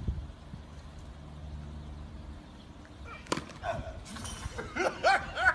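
Wind rumbling on the microphone, then a single sharp knock about three seconds in, followed near the end by a person laughing in short repeated bursts.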